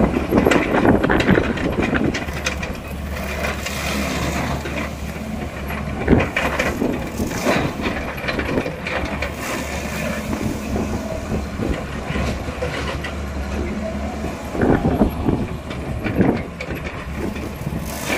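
Excavator's diesel engine running steadily under load while harvesting sugarcane, with frequent crackling and snapping throughout and a few louder bursts near the start and about fifteen seconds in.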